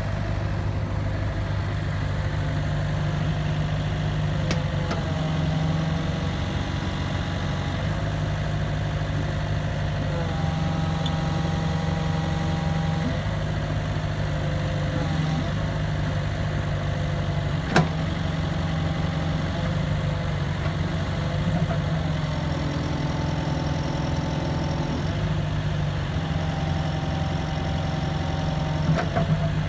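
Komatsu PC excavator's diesel engine running steadily, with a higher whine that shifts pitch every few seconds. A single sharp knock about eighteen seconds in.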